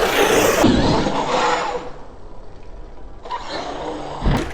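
Arrma Outcast 8S RC truck's electric brushless motor and drivetrain running hard on the run-up to the jump, going quieter after about two seconds, then a thump a little over four seconds in as the truck lands.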